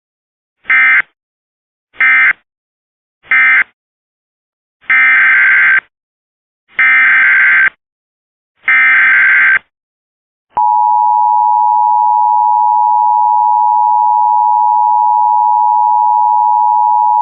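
Emergency Alert System tones. Three short screeching data bursts end one alert, then three longer data bursts announce the next, and about a second later the steady two-tone attention signal comes on and holds.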